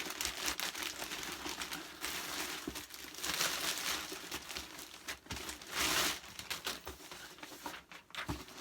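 Delivery packaging being opened by hand: irregular crinkling and rustling of wrapping, with louder bursts about three and a half and six seconds in.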